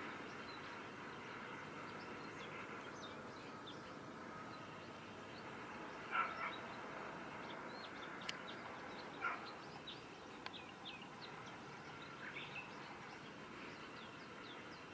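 Small birds chirping in short, scattered calls, with a couple of louder short calls about six and nine seconds in, over a faint, steady background noise.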